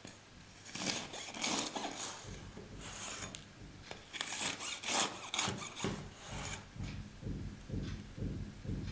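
Knife sawing down through a baked ring cake, with uneven rasping strokes as the blade cuts the crust and scrapes the wooden board. In the last few seconds a run of soft, evenly spaced low thumps takes over.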